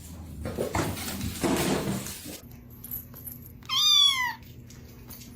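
Domestic cat meowing once, about four seconds in: a single high call that arches and falls in pitch. Before it, about two seconds of rustling noise.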